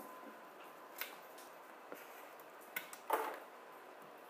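Light handling noise: a few faint sharp clicks and one short, louder rustling scrape about three seconds in.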